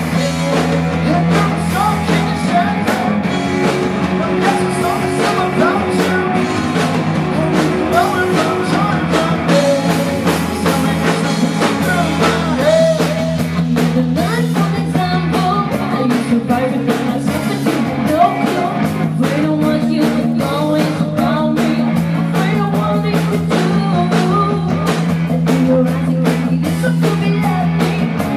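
Rock band playing live: a singer over electric guitar, bass and a drum kit, the song running on without a break.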